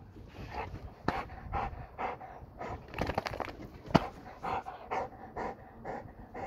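German Shorthaired Pointer panting hard, out of breath after a bout of zoomies, about two pants a second. A sharp click about four seconds in.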